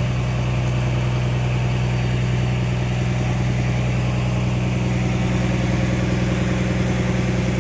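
A fishing boat's engine running steadily at an even pitch.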